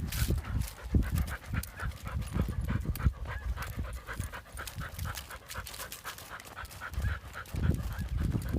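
Dog panting hard and quickly, about three to four breaths a second.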